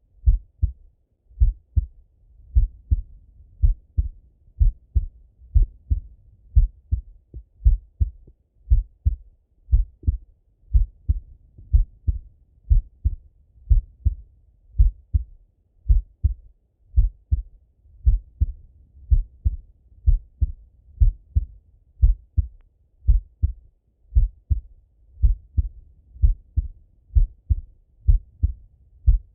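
A man's slow, resting heartbeat heard through a Littmann stethoscope: steady paired lub-dub thumps, about one beat a second.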